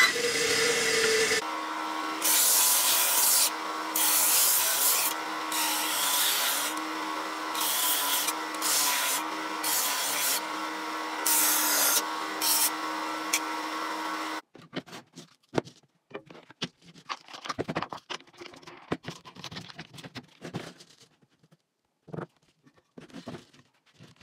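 Benchtop belt-and-disc sander running steadily, with repeated bursts of sanding hiss as wood is pressed against the abrasive. It starts abruptly after a brief stretch of scroll saw cutting plywood, and after about fourteen seconds gives way to scattered light taps and clicks.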